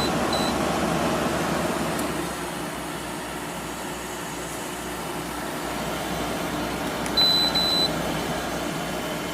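GE 6,050 BTU window air conditioner running just after being switched on, its fan blowing steadily. Short high beeps sound from its control panel at the start, and two or three more come about seven seconds in.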